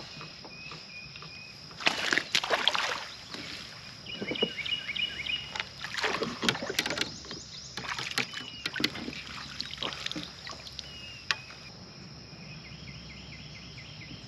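Water splashing and sloshing beside a kayak in four or five irregular bursts, over a steady high hum, with short high chirps in between.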